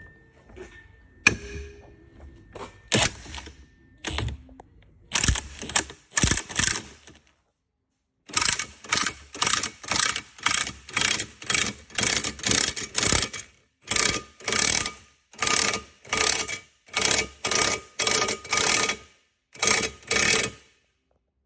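Ratchet wrench clicking in repeated short strokes, a little under two a second, turning the screw of a ball joint press to push out control-arm bushings. Scattered metal knocks and clinks come first.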